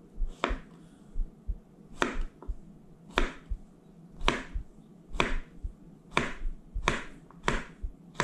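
Large kitchen knife chopping a zucchini into chunks on a wooden cutting board: about eight sharp knocks of the blade striking the board, roughly one a second, coming a little quicker near the end.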